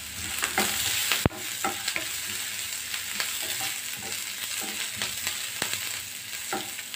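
Sliced onions, curry leaves and green chillies sizzling in hot oil in a non-stick pan, sautéing lightly, while a wooden spatula stirs them with repeated scrapes and taps against the pan. A single sharp click comes about a second in.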